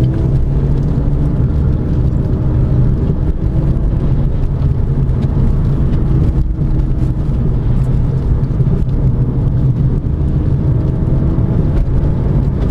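Renault Clio 200 on the move, heard from inside the cabin: the 2.0-litre four-cylinder engine runs under a steady low road rumble. The engine note rises slowly twice.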